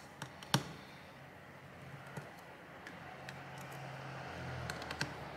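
Light, sharp clicks and taps of a precision screwdriver and tiny screws on a phone's frame and a screw mat while the screws are backed out one by one, the loudest click about half a second in. A low steady hum runs underneath and gets a little louder near the end.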